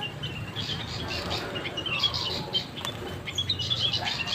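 Many small birds chirping and twittering in quick, overlapping short calls, over a faint low hum.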